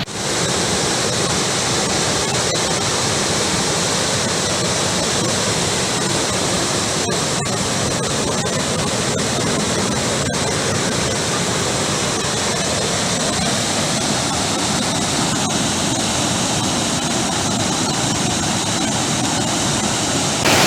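Rushing water of a swollen, overflowing stream: a steady, unbroken rush.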